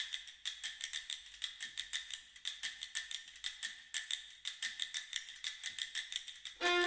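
Fast, clock-like ticking, about six sharp ticks a second. A fiddle tune comes in over it near the end.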